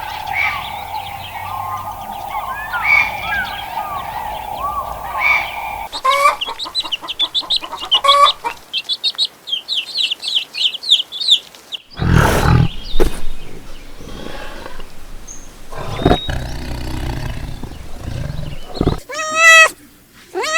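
A series of farm animal calls: chickens clucking with quick high chirps in the first half, a loud low animal call about halfway through, and a cat meowing twice near the end.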